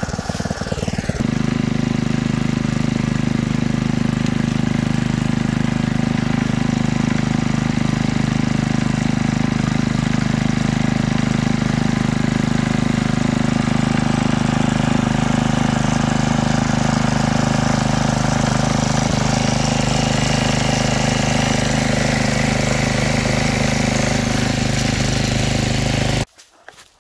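Craftsman garden tiller's small gas engine running steadily while tilling garden soil, until it cuts off abruptly near the end.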